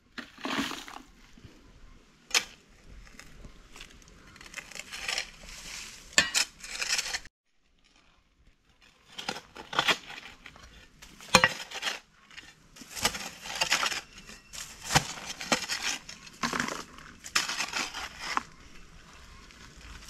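Hand digging in stony soil: metal tool blades striking and scraping earth and small stones, with a sharp clink every second or two, broken by a short silence about seven seconds in.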